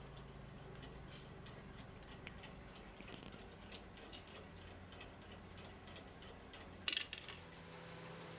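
Thin metal skewers clicking and scraping against a plate as grilled chicken tikka pieces are pushed off them: a few faint scattered clicks, then a louder short clatter about seven seconds in.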